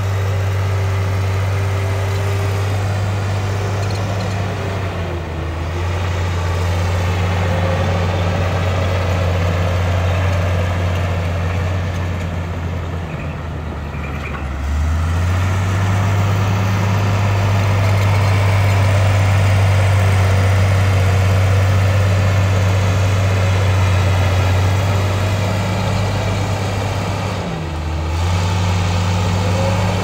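Heavy diesel engine of earthmoving machinery running steadily with a deep drone. It sags briefly in pitch and level three times, about 5, 14 and 27 seconds in, then picks back up.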